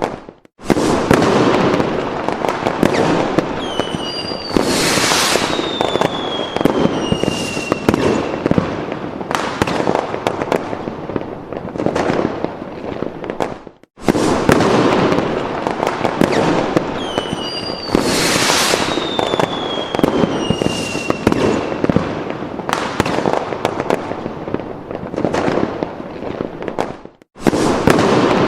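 Fireworks sound effect: dense crackling and popping bursts with a falling whistle a few seconds into each pass, looping about every 13.5 seconds with a brief silent break between loops.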